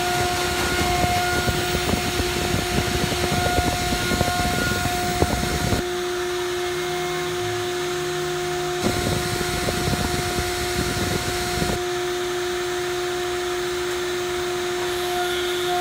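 Small CNC milling machine spindle running with a steady hum while a fine end mill cuts gear teeth into a brass blank. The cutting adds a rough, crackling noise for the first six seconds or so and again for about three seconds from nine seconds in; in between, only the steady spindle hum is heard.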